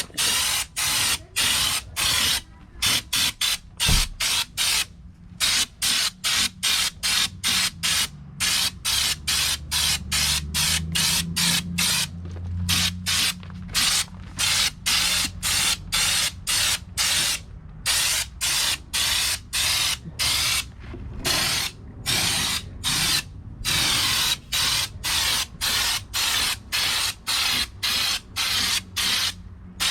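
Air-fed spray gun hissing in a long run of short bursts, about two to three a second, with brief gaps between them as a coating is sprayed onto the truck bed.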